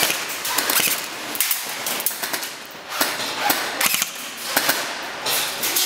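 Airsoft guns firing in several short rapid bursts of sharp clicking shots, with brief pauses between.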